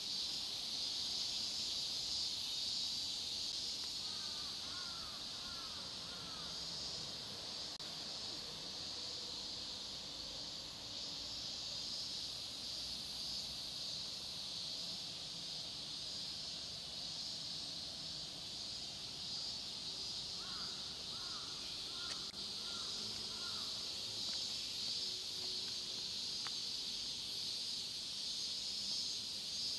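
Outdoor ambience dominated by a steady, high-pitched insect chorus. Two short runs of quick bird chirps, about five calls each, come a few seconds in and again about two-thirds of the way through.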